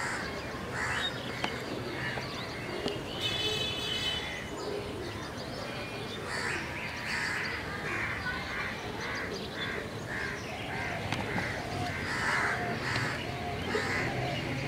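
Crows cawing, a few scattered caws at first and then a run of short caws about two a second through the second half. A brief high steady tone sounds about three and a half seconds in.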